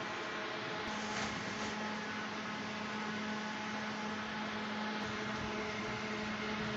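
A steady hum over an even background hiss, with a low steady tone that comes in about a second in.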